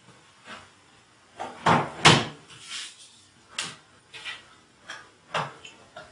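A string of sharp clicks and knocks at uneven spacing, about a dozen in all, the loudest pair about one and a half to two seconds in.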